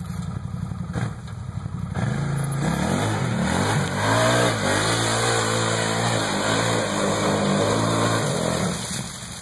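Arctic Cat Wildcat side-by-side's engine idling, then revving hard about two seconds in as the machine climbs a steep dirt hill in four-wheel drive. The engine note rises and wavers under load and settles back near the end.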